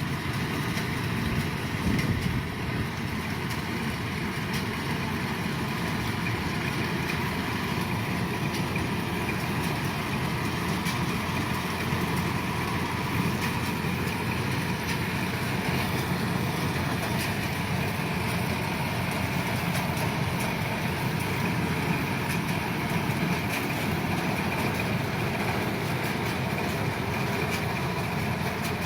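Kubota DC-105 combine harvester running steadily, its engine and machinery giving an even drone.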